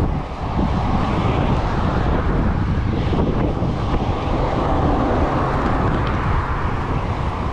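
Steady rush of wind on the microphone of a moving bicycle, mixed with the rumble of tyres on concrete pavement and passing road traffic.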